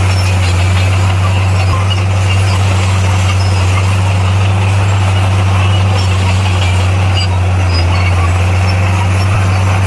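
Diesel engine of heavy earthmoving equipment running steadily, a constant low drone that holds the same pitch and loudness throughout.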